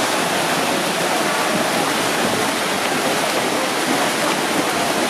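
Steady, even rushing water noise of swimmers splashing through a pool race.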